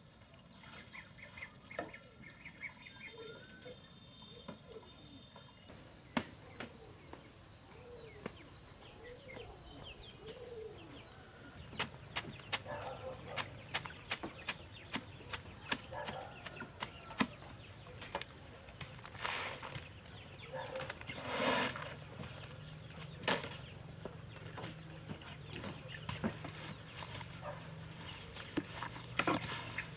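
Poultry and small birds calling for the first dozen seconds. Then a big knife chopping sweet potato leaves on a sack laid on the ground, in quick, irregular strikes. Near the end, a wooden pole knocks as it pounds the chopped leaves in a plastic bucket.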